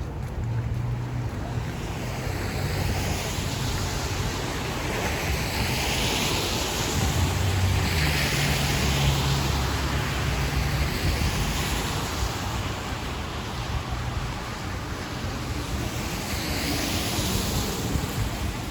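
Street traffic: vehicles passing one after another, each a swelling and fading hiss over a low engine hum.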